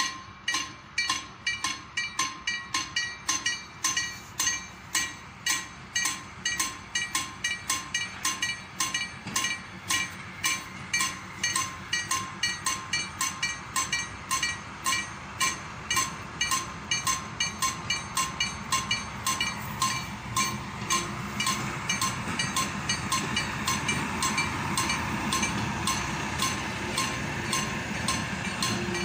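Level-crossing warning bell ringing steadily at about two strokes a second. From about twenty seconds in, a small shunting locomotive and its coach approach and pass the crossing, their rumble growing under the bell.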